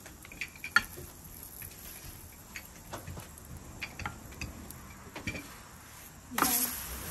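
Wooden spatulas (dablas) knocking and scraping against a roti griddle (tawa) and a dish of oil: scattered light clicks, one sharp click under a second in, and a short scraping hiss near the end as the roti is lifted.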